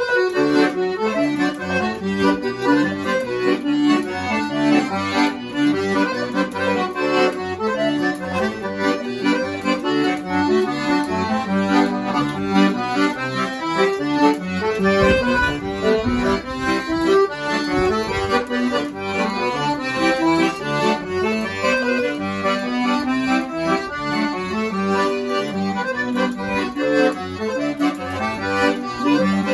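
Paolo Soprani piano accordion playing a solo forró tune, with a melody over rhythmic bass notes.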